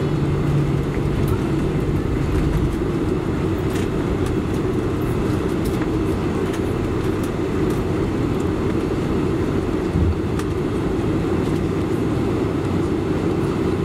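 Steady engine and airframe rumble inside the cabin of a Boeing 747-400 taxiing toward the runway. There is a single low thump about ten seconds in, as from a wheel rolling over a taxiway joint.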